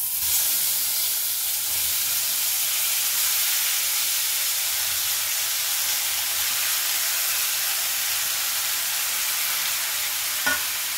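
Chopped tomatoes sizzling as they drop into hot mustard oil in a kadai, a loud, steady sizzle that starts suddenly as the first pieces hit the pan. A single short knock near the end.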